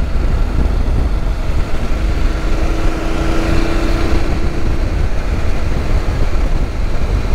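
Heavy wind rush over the motorcycle-mounted microphone, with the BMW motorcycle's engine running at a steady highway cruise of about 90 km/h. A faint steady tone comes in about two seconds in and fades a couple of seconds later.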